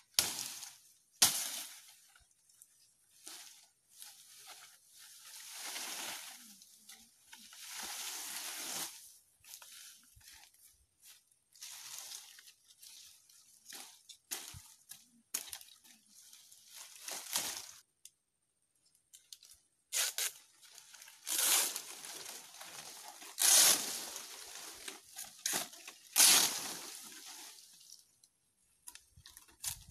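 Coconut palm frond being split along its midrib with a machete: dry leaflets rustling and the frond tearing in irregular bursts, with a sharp crack about a second in.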